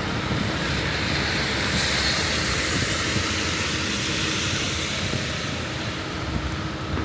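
Traffic on a rain-wet city street: a steady low rumble of passing vehicles, with a high hiss that starts suddenly about two seconds in and carries on.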